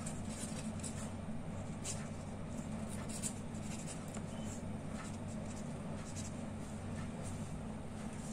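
Pen writing on paper in short strokes, over a steady low hum.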